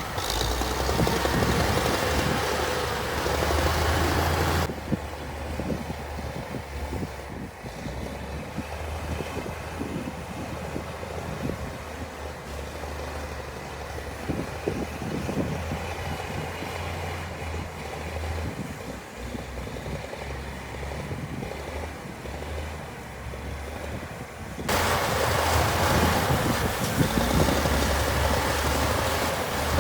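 Heavy diesel earthmoving machinery running with a steady low engine drone. It is louder and noisier for the first few seconds and again near the end, with abrupt changes in level.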